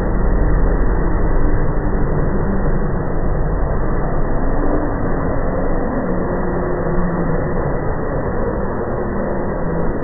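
The so-called strange sound in the sky: a loud, steady low rumbling drone with faint wavering tones drifting through it.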